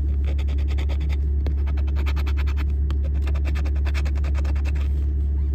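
A coin scratching the coating off a scratch-off lottery ticket in rapid repeated strokes, stopping shortly before the end, over a steady low hum.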